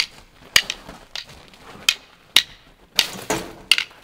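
Wooden sticks used as swords clacking together in a mock sword fight: about ten sharp, irregular knocks.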